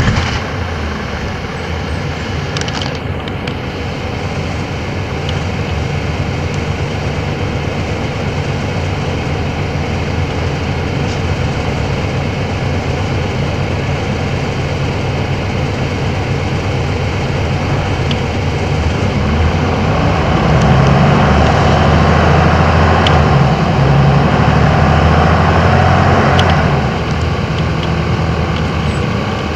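DAF city bus diesel engine running steadily. About two-thirds of the way in it grows louder for several seconds, then drops back abruptly.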